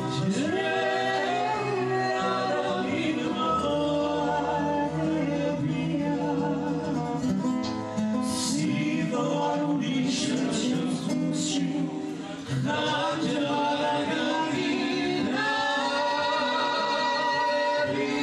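A woman singing a slow song live into a microphone, accompanied by acoustic guitar.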